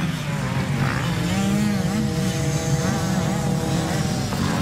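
Motocross motorcycle engines running on the track, revving with the pitch rising and falling. A steadier drone joins about a second in and drops out near the end.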